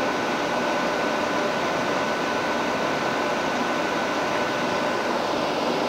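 Steady fan noise of a ventilation system, with a faint steady high tone running through it.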